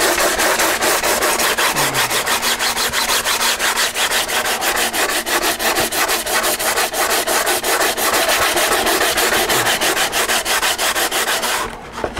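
Sandpaper on a block being rubbed quickly back and forth over a fiberglass-and-resin coating on a balsa model-airplane fuselage, about five strokes a second, stopping briefly near the end. The scratchy sound comes from the built-up layers of resin over the cloth weave, not the glass cloth itself.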